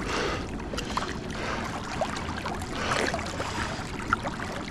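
Water sloshing and trickling at the side of a small inflatable boat, with scattered small drips and gurgles and one sharp tap about four seconds in.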